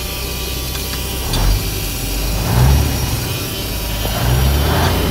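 An old Cummins diesel in a Western Star truck idling, swelling louder three times. It has been freshly started and is still warming up.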